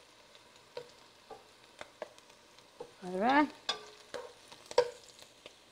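Chopped onion and garlic frying in oil in a skillet, a faint sizzle under scattered knocks and scrapes of a spoon in the pan as the garlic is lifted out. A brief voice sound about three seconds in.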